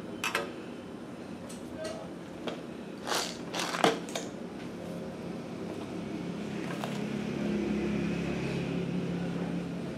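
Faint handling noise as a crocheted yarn owl is moved about by hand: a few soft rustles and light taps, the clearest a little over three seconds in. A low steady hum grows in the background from about halfway through.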